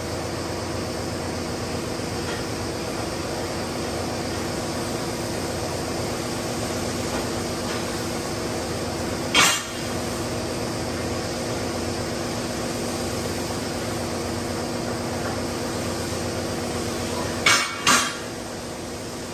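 Steady hum of factory machinery with several steady tones, broken by sharp metallic bangs: one about halfway through and two in quick succession near the end.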